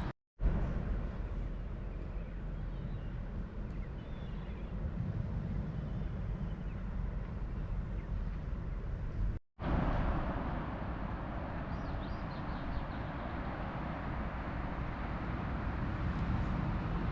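Steady wash of ocean surf with a deep rumble underneath, cut off completely for a moment twice: just after the start and about halfway through.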